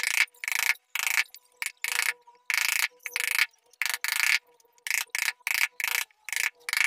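Carving chisel driven into a wooden door panel with a wooden mallet, the blade cutting through the wood in a run of short, irregular cuts, about one or two a second.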